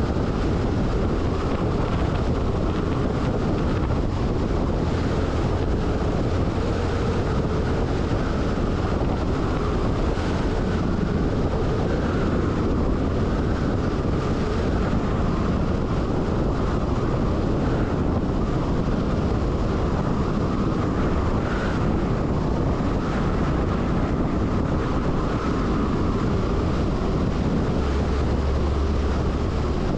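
MAN LE 280 B 4x4 truck cruising steadily on a sealed road: wind rushing over the roof-mounted microphone, with the engine and tyres as a steady low rumble underneath that swells briefly near the end.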